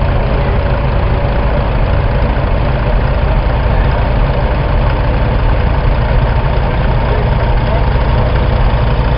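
Vintage tractor engine and threshing machinery running steadily, a constant deep rumble with no change in speed.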